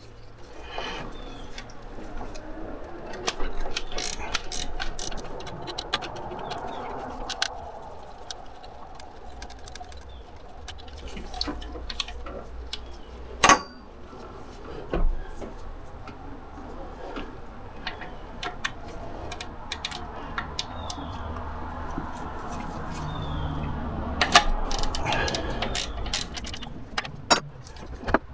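Hand work in a truck's engine bay: scattered clicks, knocks and rustling as the air switching valve assembly and its hose are worked loose, with one sharp click about halfway through and a cluster of clicks near the end.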